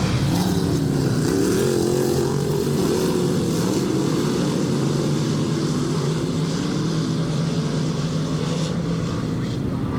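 Dirt-track race car engines running around the oval, their pitch rising and falling over the first few seconds and then settling into a steadier drone.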